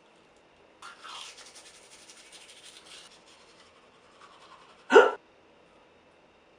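A person hiccups once, short and loud, about five seconds in. Before it, from about one to three seconds in, there is a quieter rapid scrubbing hiss.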